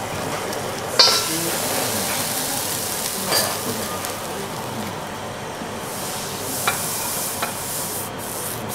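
Food sizzling on a teppanyaki steel griddle, a steady frying hiss, with a few sharp clicks of metal spatulas on the hot plate. The loudest click comes about a second in.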